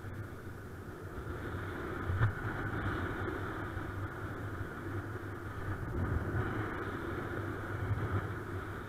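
Airflow rushing and buffeting over the camera microphone of a paraglider flying in strong wind, a steady, wavering rumble and hiss. A single brief knock sounds about two seconds in.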